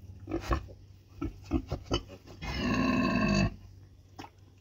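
Pigs grunting at a nursing sow and her litter of suckling piglets: a few short grunts, then one louder drawn-out call lasting about a second, a little past halfway.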